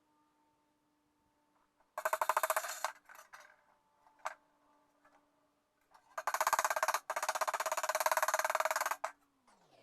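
Pneumatic hammer rapidly hammering sheet-steel panel, planishing a welded seam. It comes in two bursts: a short one about two seconds in and a longer one of about three seconds near the end, with a single knock between them.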